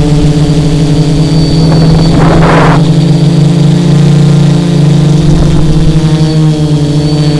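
A tricopter's three Emax XA2212 980 kV brushless motors and propellers running in flight, picked up by the camera mounted on the craft: a loud, steady drone at a near-constant pitch. A short rush of noise comes a little over two seconds in.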